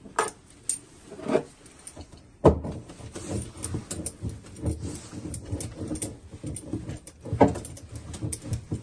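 Old hoses being worked loose by hand inside a boat's cockpit locker: irregular knocks, clunks and rustling, with a loud thump about two and a half seconds in and another near the end.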